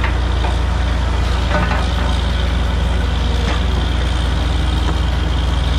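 Truck-mounted borewell drilling rig's engine running steadily with a low, even drone, with two light knocks about two seconds apart.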